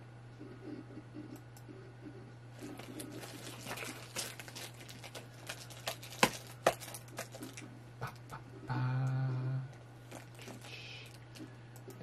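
Crinkling and crackling of a plastic-wrapped diamond painting kit being handled, dense for several seconds, with a brief steady hum from a man's voice about nine seconds in.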